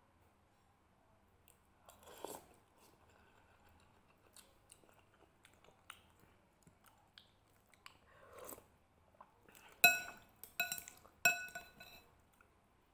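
Someone eating instant noodle soup: faint chewing and mouth sounds with a few soft ticks. Near the end, a metal spoon strikes the ceramic bowl three times in quick succession, each strike ringing briefly.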